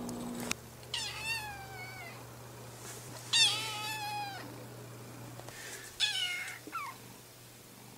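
Kitten meowing: three high-pitched meows about a second long each, the pitch sliding down at the end of each. A short, lower cry follows the third. The middle meow is the loudest.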